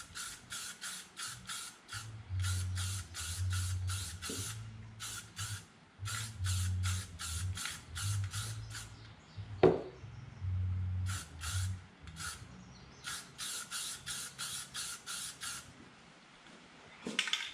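Aerosol can of yellow spray paint worked in quick strokes: rapid sharp bursts of about four or five a second, in runs with short pauses. A single louder knock comes about ten seconds in.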